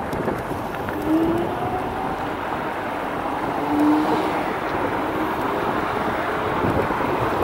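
Riding noise from an electric scooter under way: a steady rush of wind on the microphone and road noise, with a few short faint whines about one to four seconds in.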